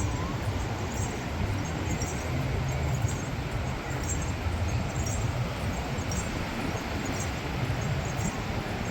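Steady beach ambience: a constant low rumble of wind on the microphone, with surf behind it.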